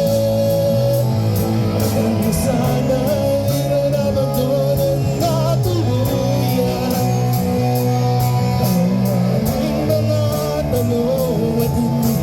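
Live band playing a song: a singer's voice over guitar and bass, with a steady drum beat.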